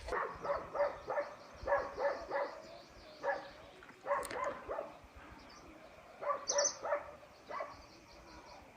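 A dog barking in short runs of two to four barks, with faint bird chirps behind.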